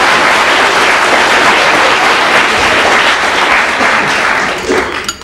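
Studio audience applause after a punchline, dying away near the end.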